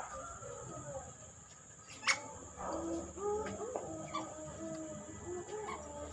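Fowl clucking in a run of short, low calls, starting about two and a half seconds in, just after a sharp knock.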